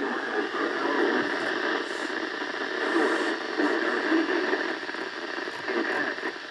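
NOAA weather radio reception buried in heavy static: a dense, fluttering hiss with crackle, and the broadcast barely comes through beneath it.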